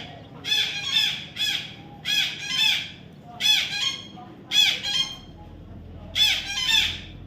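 Young parrot squawking: harsh, repeated calls in quick pairs and triplets, about one group every second.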